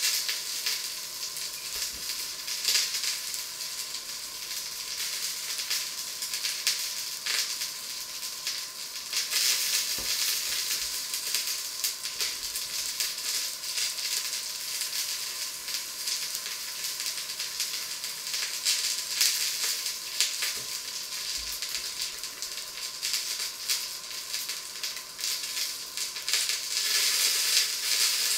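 Food frying in a pan on the stove: a steady sizzle with many small crackles and pops.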